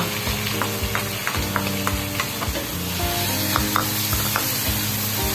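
Diced onion, garlic and tomato sizzling in hot oil in an aluminium wok, stirred with a wooden spatula that scrapes and taps the pan now and then, over background music with a steady beat.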